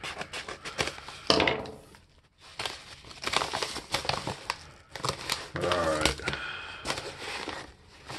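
Paper mailer envelope being cut open with scissors and rummaged by hand: irregular crinkling and rustling of paper with a few snips and clicks, pausing briefly twice.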